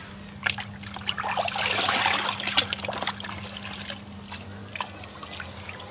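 A bucket of liquid probiotic bacteria mix being poured into an aerated biofloc fish pond, splashing and trickling onto the water. The pour is heaviest in the first few seconds and thins to scattered drips and splashes.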